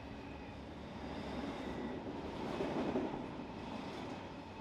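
Freight cars rolling past on the rails: a steady rumble and rattle of wheels on track from container well cars and covered hoppers. The sound swells about halfway through, then eases.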